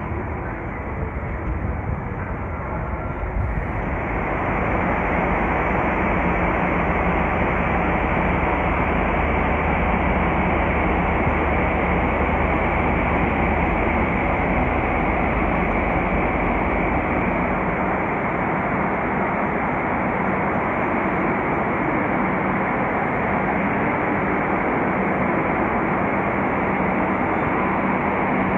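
Steady din of trains in a large railway station's train shed, a continuous rumble that sets in loudly a few seconds in after a quieter opening. A low, steady engine-like hum runs under it through the middle part, then fades.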